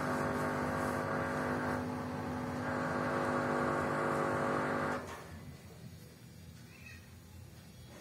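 LG 7 kg inverter direct-drive front-loading washing machine spinning: a steady motor whine over the rush of the drum. About five seconds in it cuts off abruptly, leaving a faint low hum.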